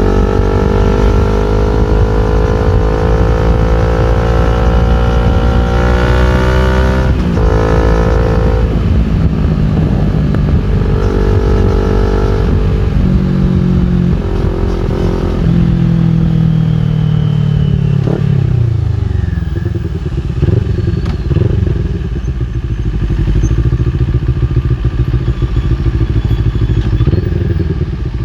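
CFMOTO NK400's parallel-twin engine through an Akrapovic full exhaust, revving up with a rising pitch and a gear change about seven seconds in. It pulls again, then falls in pitch as the bike slows about two-thirds of the way through, and settles to a lower, uneven running.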